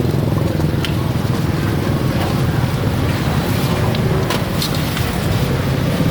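An engine running steadily with a low, even rumble, with a few faint clicks over it.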